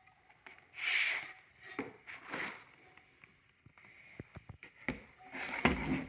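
Handling noises of a laptop screen extender and its folding stand: short rustles, light clicks and soft knocks, with the loudest knock and rustle near the end.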